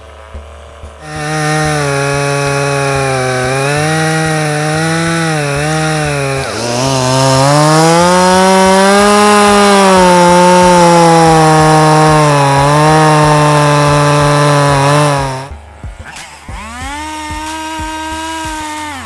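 Stihl chainsaw revved to full throttle and cutting into the tree, its engine pitch sagging and recovering as the chain bites into the wood. It drops back to idle about fifteen seconds in, then revs again briefly near the end.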